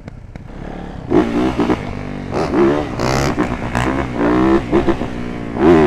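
Dirt bike engines revving in repeated bursts, the pitch climbing and dropping with each blip of the throttle, over a steady low rumble.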